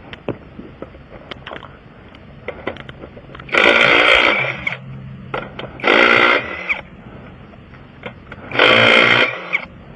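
Impact wrench run in three short bursts of about a second each, with small metallic clicks between them: lug nuts being spun off a wheel to change a flat tyre.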